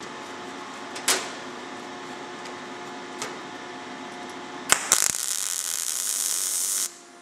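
MIG welder arc striking on thin sheet steel about two-thirds in and running as a steady, even hiss for about two seconds before cutting off, with the voltage turned up enough to hold a consistent arc that burns into the metal. A light knock about a second in and another about three seconds in come before it, over a steady low hum.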